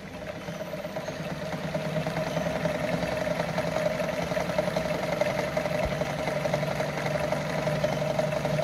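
Brother Pacesetter Super Deluxe sewing machine running steadily, sewing a short straight stitch through denim; it picks up speed over the first second or two, then holds an even run.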